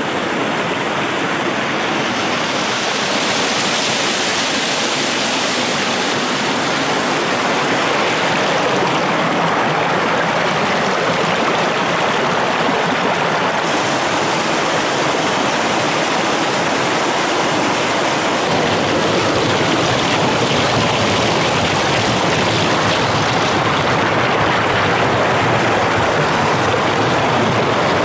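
Rushing water of a mountain stream and small waterfall: a steady, loud, even rush.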